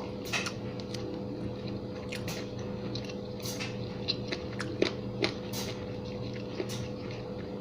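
A person biting and chewing fried chicken wings, with scattered short crunches and mouth clicks over a steady low hum.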